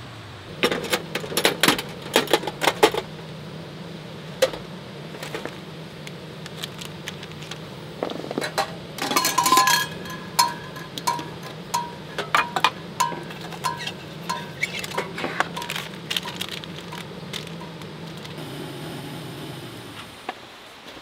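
Tabletop gas burner running steadily under a kettle, with metal clinks, taps and knocks as coffee gear is handled. Near the middle there is a short rustling burst, then a run of evenly spaced short ticks; the burner stops shortly before the end.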